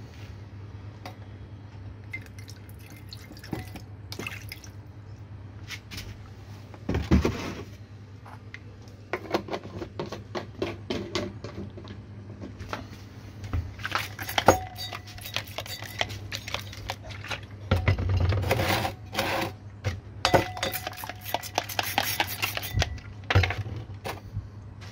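Liquid being poured and splashed into a glass beaker holding gold-laden filter paper, in several separate spells, with glass and bottle handling clinks and knocks, over a steady low hum.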